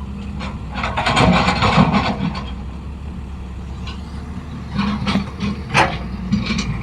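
A machine's motor running steadily with a low hum, with a burst of rattling, scraping noise about a second in and a few sharp clicks near the end.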